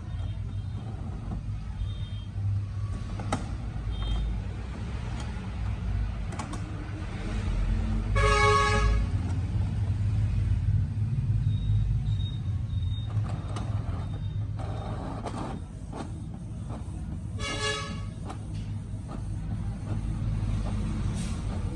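Canon TS6130 inkjet printer running its print-head cleaning cycle and then starting a print: a steady mechanical hum with scattered sharp clicks. The clicking from the ink pump is the strange noise in question, with the suction pump unit suspected. Two short horn toots sound, about 8 and 17 seconds in.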